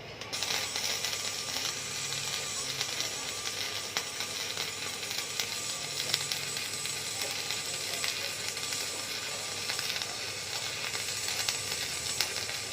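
Flux-core wire MIG welding arc from a 500A MIG welder, crackling and sizzling steadily with frequent sharp pops. It strikes abruptly at the start and keeps burning without a break.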